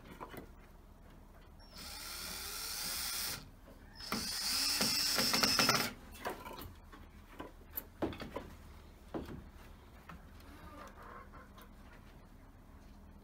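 Yellow cordless drill run twice into a wooden door post, about two seconds each time, the second run louder with a steady high whine. Scattered clicks and knocks of hands and wood follow.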